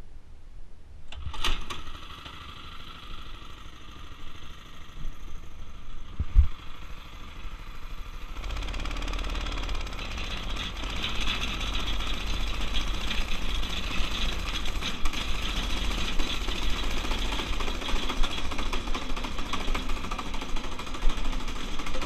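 Predator 212 cc single-cylinder four-stroke engine on a go-kart, pull-started and catching about a second in, then running steadily. About eight seconds in it opens up much louder under throttle as the kart drives off, and it keeps running hard to the end.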